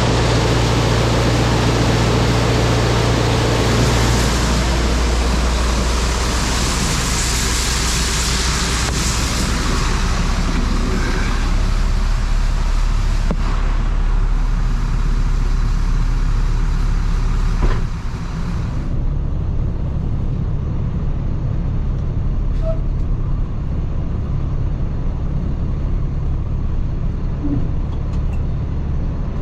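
Large farm diesel engine running steadily, with a loud rushing noise over it that drops away about two-thirds of the way through, leaving the engine running.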